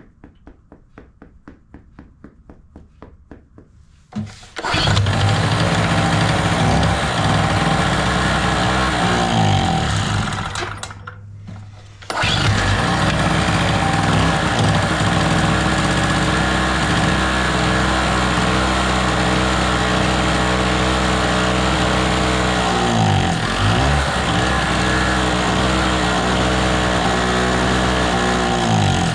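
Small two-stroke generator engine started on choke. After about four seconds of faint, even clicking it catches and runs loud. About ten seconds in it slows and nearly dies, then picks back up suddenly and runs steadily, sagging briefly twice near the end.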